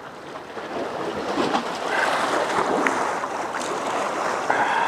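Steady wash of waves with wind noise on the microphone, growing louder about a second in.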